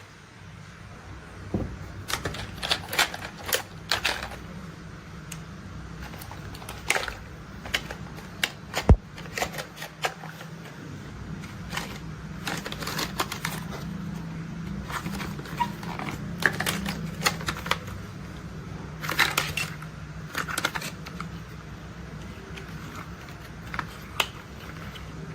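Plastic toy construction vehicles being handled and played with: irregular clicking and clattering of plastic parts in clusters, over a steady low hum.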